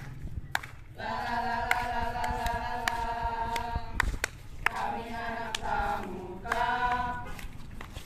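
A group of voices singing together in long held notes, in phrases broken by short pauses, with a few sharp clicks.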